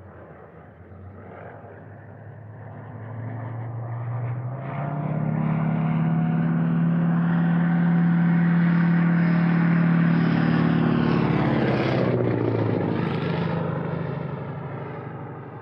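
Single-propeller Morane monoplane diving past: the engine's steady tone grows louder as it comes in, drops in pitch about twelve seconds in as it passes, then fades away.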